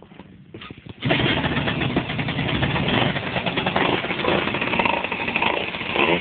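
Rebuilt Yamaha Neo's scooter engine: a few light clicks, then about a second in it catches and runs loudly and steadily.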